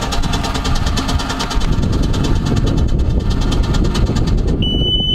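A Sea Ray boat's inboard engine running with a steady, rapid rhythm. Near the end, a steady high-pitched buzzer starts sounding over it.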